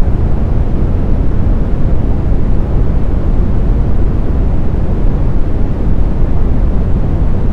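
Synthetic brown noise: a steady, deep noise with no tones or breaks, heaviest in the bass and fading off toward the highs.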